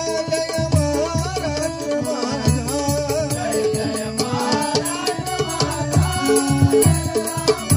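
Bhajan ensemble playing an instrumental passage between sung lines: a harmonium melody over a steady fast rhythm of low hand-drum strokes and small cymbal clashes.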